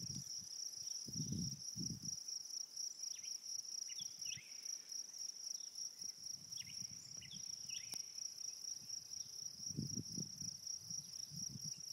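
Steady high-pitched insect trill, with a few short faint bird chirps in the middle and soft low thumps about a second in and again near the end.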